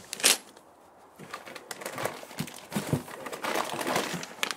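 Plastic parts bags crinkling and a cardboard box rustling as hands rummage through it: one sharp crinkle just after the start, a short lull, then scattered rustles and small clicks.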